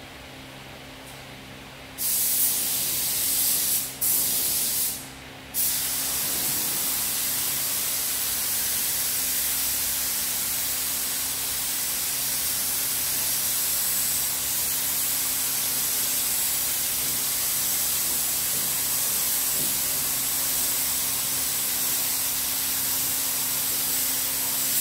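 SATA 5000 RP spray gun with a 1.3 nozzle, hissing steadily as compressed air atomises paint for a second coat. It starts about two seconds in, stops twice briefly as the trigger is let off, then sprays without a break.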